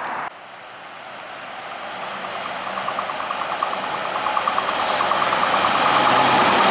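Freightliner Class 66 diesel-electric locomotive approaching with a container train, its two-stroke EMD diesel engine growing steadily louder, with a fast rhythmic ticking through the middle of the approach.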